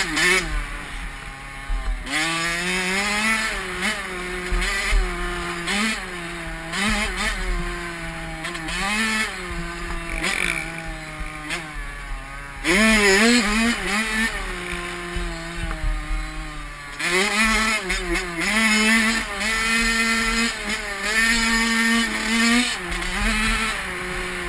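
Honda CR85 two-stroke dirt bike engine revving up and dropping back again and again through the gears, with wind rumbling on the helmet-mounted microphone.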